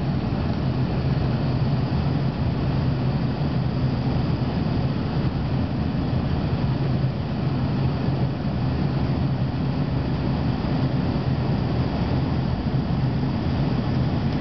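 Aircraft engine and airflow noise heard inside the cabin during the climb after takeoff: a steady, unbroken drone with a low hum underneath.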